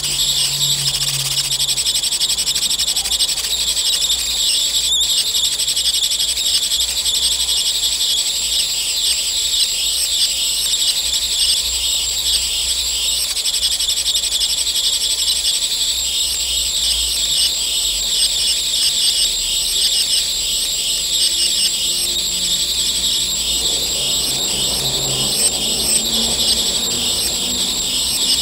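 High-voltage arc of a small Jacob's ladder climbing between two upright wires, giving a steady high-pitched buzzing hiss.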